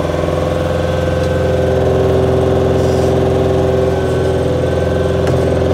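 Montana 5740 tractor's diesel engine running steadily, heard from the operator's seat, rising a little in level about a second and a half in.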